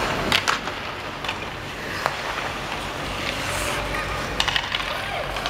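Ice hockey play: skates scraping on the ice and sticks knocking against the puck and ice, with a few sharp clacks, the loudest about half a second in and again about four and a half seconds in.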